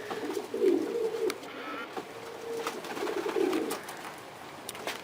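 Domestic pigeons cooing in several low, wavering bouts, with a couple of short taps in between.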